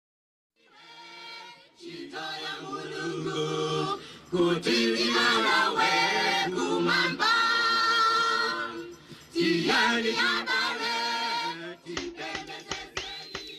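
Unaccompanied choir singing in three long phrases. Near the end a few sharp percussive hits come in as a drum-backed music track begins.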